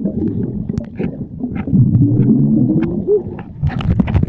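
Muffled underwater sound picked up by a camera held under the sea: low rumbling water movement with bubbles crackling and clicking. From about two seconds in there is a louder muffled pitched sound that bends up near the end.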